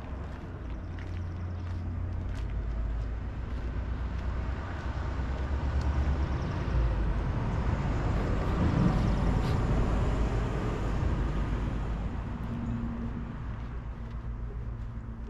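A car driving past on a wet street: its tyre hiss and engine rumble swell slowly to a peak about nine seconds in, then fade away.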